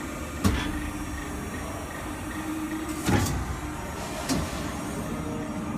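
Steelmaster full-hydraulic CNC panbrake folder running with a steady hum. A sharp knock comes about half a second in, a louder one at about three seconds, and a lighter one about a second after that.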